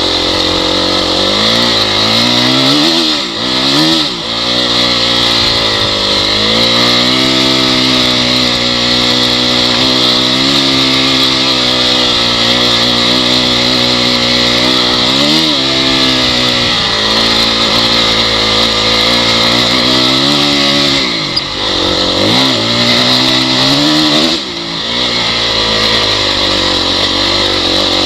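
Honda CRF dirt bike engine running under way at a mostly steady pitch, with the revs dipping and climbing back several times: twice about three to four seconds in, once around the middle, and twice near the end.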